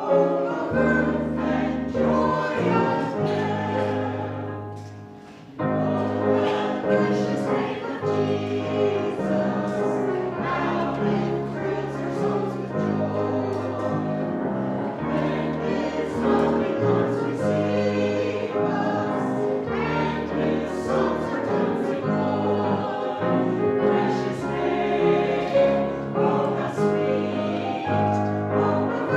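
Choir singing a hymn over sustained bass notes. The music dips about five seconds in and comes back abruptly.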